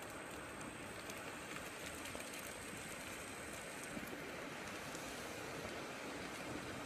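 Muddy flash-flood torrent rushing through a gully: a steady, even rush of water.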